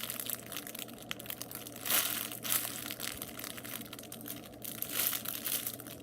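Plastic wrapper crinkling and rustling as a foam squishy is handled and squeezed, in irregular bursts, loudest about two seconds in and again near five seconds.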